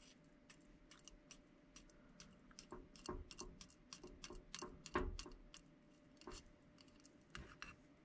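Faint, irregular clicking and scraping of a metal fork against the inside of a glass candle jar as it pushes softened wax down.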